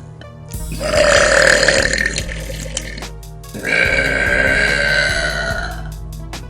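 A girl burping: two long, drawn-out burps, each lasting about two seconds, the second starting a little after the first has ended.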